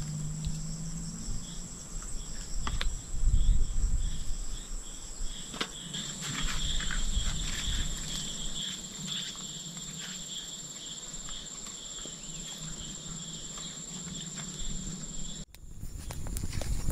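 Forest insects, crickets among them, chirring in a steady high-pitched chorus, with scattered light clicks and taps over it. The chorus breaks off abruptly near the end.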